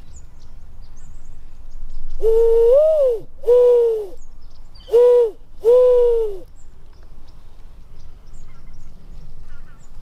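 Dove call made by blowing into cupped hands: four low hoots, the first longer with a slight rise in pitch near its end, then three shorter ones. It is a hunter's call to lure doves.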